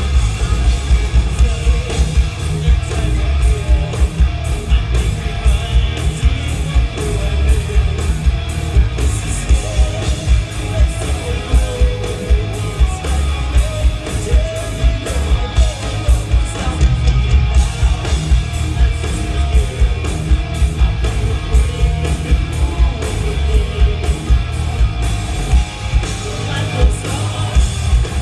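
Hard rock band playing live: distorted electric guitars, bass and drums keeping a steady beat, with a singer's voice over the top.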